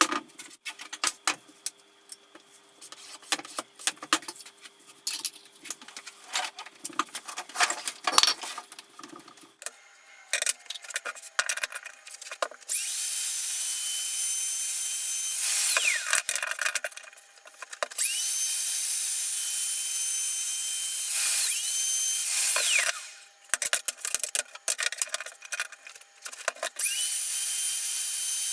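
Handheld power tool running in three long runs of about five seconds each, its motor whine falling in pitch as it winds down at the end of each run, after several seconds of light clicks and taps of handling.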